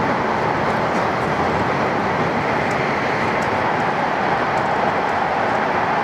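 Steady running noise of an E7 series Shinkansen train, heard inside the passenger car: an even, unchanging rush.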